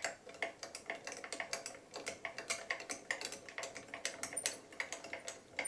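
Small, irregular clicks and ticks, several a second, from a milling machine's table being moved by hand while a dial test indicator is run across the workpiece to check that it sits level.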